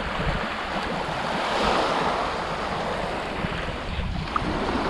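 Small sea waves washing up and draining back over a pebble beach, with wind buffeting the microphone. The wash swells a little around the middle.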